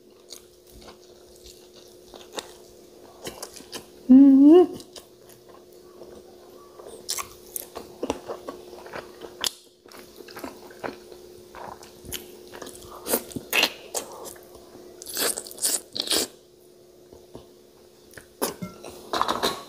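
A person chewing and biting into chicken wings eaten by hand, close to the microphone, with wet smacking and crunching in irregular clusters. A short hummed 'mm' from the eater about four seconds in.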